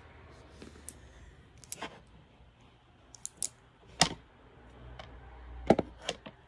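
Sharp clicks and taps of makeup items being handled: a palette, compacts and brushes picked up and set down on a hard surface. About half a dozen separate clicks, the loudest about four seconds in and near the end.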